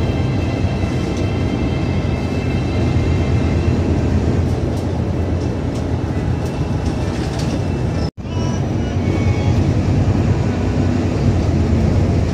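Steady low rumble of a city bus in motion, heard from inside the passenger cabin. The sound cuts out for an instant about eight seconds in.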